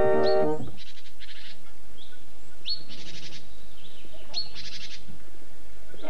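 A songbird singing the same short phrase over and over, a quick rising note followed by a rapid trill, repeated about every second and a half to two seconds. Accordion music ends within the first second.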